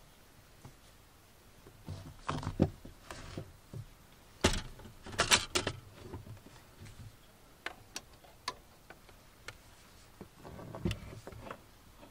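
Small objects being handled and set down on a wooden crate: a string of knocks, taps and clicks, heaviest in a cluster about halfway through, with a soft rustle near the end.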